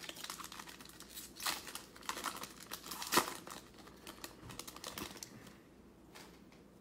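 Wrapper of a football trading-card pack crinkling and tearing as it is opened by hand, in a series of irregular crackles. The loudest crackle comes about three seconds in, and the sound tails off near the end.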